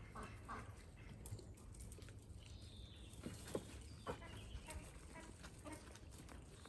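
Faint sounds of Dalmatian puppies moving about on paving stones, with a few soft taps and knocks, the two clearest a little past the middle, about half a second apart.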